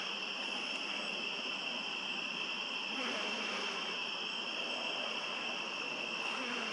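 Steady chorus of crickets trilling without a break, over a soft even hiss.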